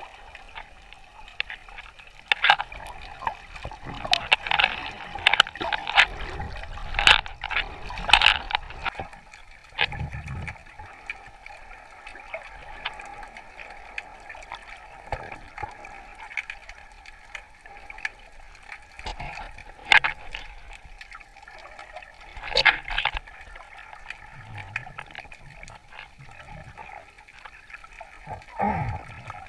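Seawater sloshing and gurgling around a camera held in the sea while snorkeling, with many sharp clicks and pops, thickest in the first third.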